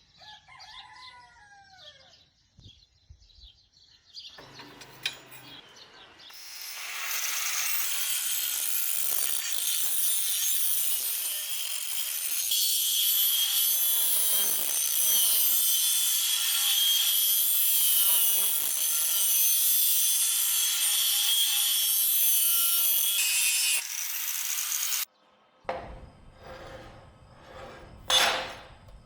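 A power tool working metal: a steady, harsh grinding noise starts about six seconds in, runs for about eighteen seconds and cuts off sharply. A few clicks and knocks follow, one louder near the end.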